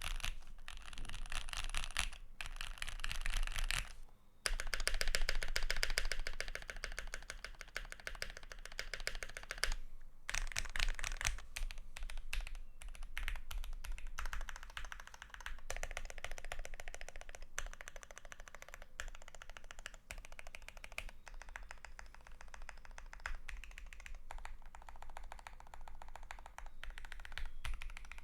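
Continuous typing on a custom 65% mechanical keyboard (Tofu65 case, aluminium plate, lubed SP Star Meteor White V2 switches, GMK Olivia++ keycaps, tape mod and polyfill): a dense stream of key clacks, with brief pauses about 4 and 10 seconds in.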